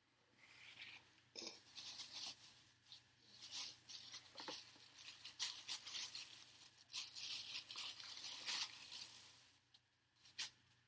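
Crinkly white paper food wrapper being crumpled and rustled, a run of crackling rustles that stops a second or so before the end, with one more short rustle near the end.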